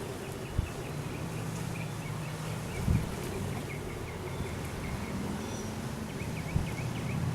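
Wind rumbling low on the microphone during a lull, with a few dull thumps. Faint high chirping comes in two short runs, near the start and again near the end.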